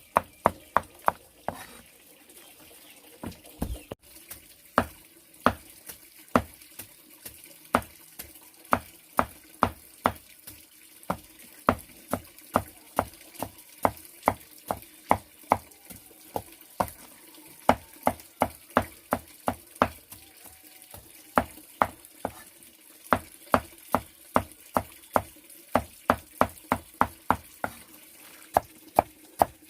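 Blade chopping with sharp, regular strikes, about two to three a second, with a short break in the rhythm soon after the start.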